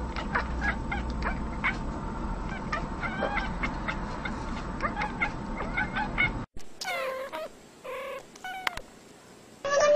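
Cats meowing. First comes a busy stretch of many short cries over steady background noise, then after an abrupt cut a few separate, longer falling meows.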